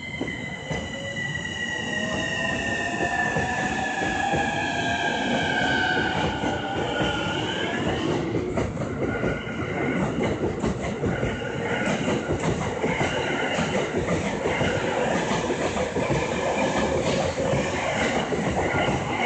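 Tokaido Line electric commuter train pulling away from the platform. Over the first eight seconds its traction motors whine in several tones, some sliding down in pitch and one rising, as it accelerates. After that comes a steady rumble of wheels on rails, with quick clicks as the cars pass over the rail joints.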